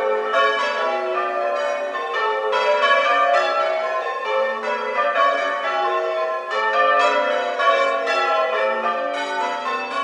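Church bells ringing changes: a ring of tower bells struck one after another in an even, continuous rhythm, each stroke overlapping the ringing of the ones before.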